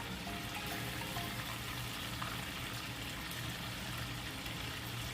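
Coated chicken drumsticks frying in hot oil in a cast-iron Dutch oven: a steady sizzle. Soft background music plays under it.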